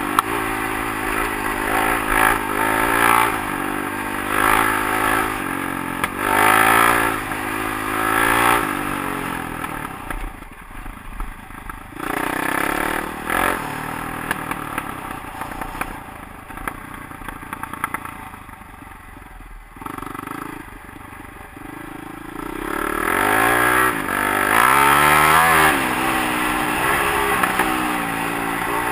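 Honda CRF450X single-cylinder four-stroke dirt bike engine under way, revving up and down with the throttle. Through the middle it eases off to a quieter run for several seconds, then revs up again near the end.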